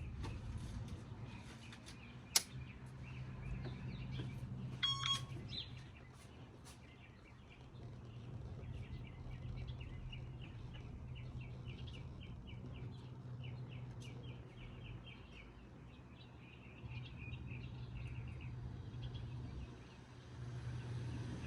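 A small bird chirping in quick runs of short, repeated high notes over a low steady hum, with a single click early on.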